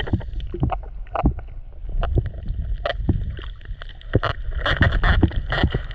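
Underwater sound picked up by a diver's camera: a constant low rumble of moving water with many scattered, irregular clicks and pops.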